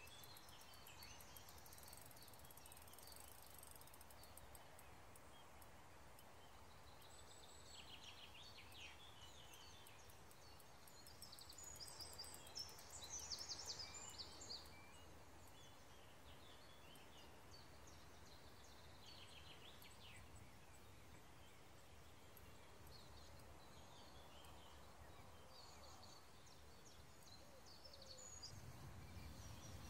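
Faint birdsong: scattered short chirps and calls over a quiet background, with the busiest burst of chirping about twelve to fourteen seconds in.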